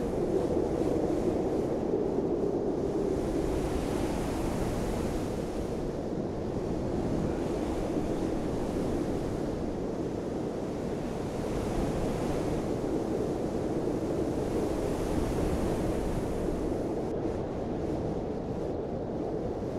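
Steady rushing wind noise that swells and eases every few seconds.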